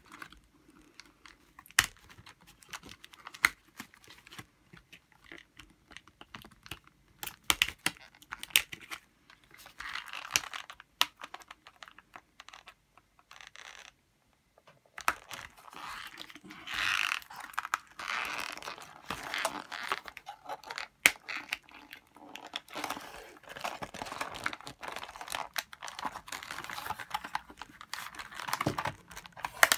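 Scissors snipping and clicking at the plastic fastenings that hold a doll to its cardboard backing, with crinkling and rustling of the card and packaging as it is handled. Irregular sharp clicks throughout, with a brief silence about halfway.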